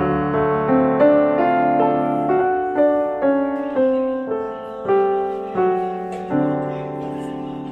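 Background piano music: a slow, gentle melody with notes struck about twice a second, each left to fade.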